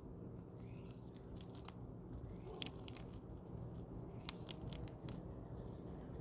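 Eastern chipmunk cracking open and chewing peanut shells close to the microphone: a few short runs of sharp, dry crunches, the busiest in the second half.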